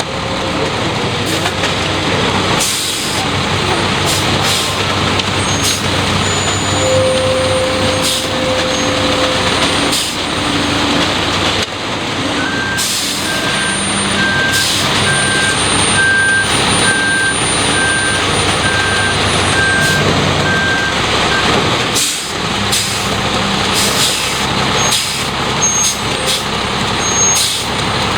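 Front-discharge concrete mixer truck running loudly at close range, with short air hisses now and then, and a backup alarm beeping about once a second for some nine seconds in the middle.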